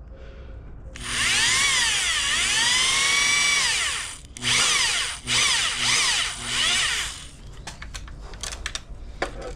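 Electric drill boring into stainless steel pipe: one long run of about three seconds whose pitch sags under the feed pressure and climbs back, then three short bursts on the trigger. Scattered light clicks follow near the end.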